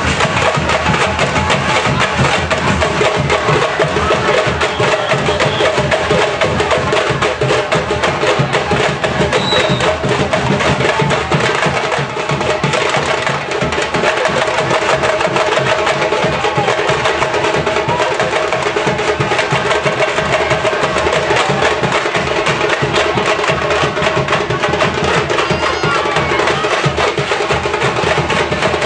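Live folk band music: fast, dense drumming and percussion under a sustained melody line that holds steady throughout.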